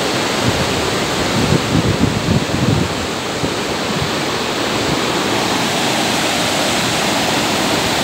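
Steady rushing of a wide, shallow river waterfall and rapids, white water pouring over rock ledges. Gusts of wind buffet the microphone with a low, uneven rumble in the first three seconds.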